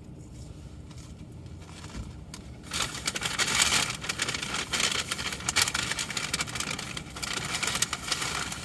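Paper fast-food bag and wrapper rustling and crinkling as they are handled, starting about three seconds in and lasting about six seconds.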